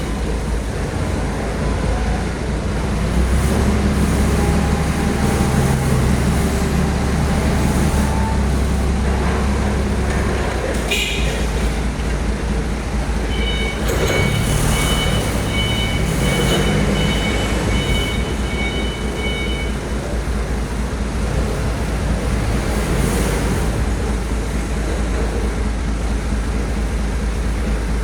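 Heavy road traffic, with large vehicle engines running steadily. A steady high-pitched tone sounds for about six seconds in the middle.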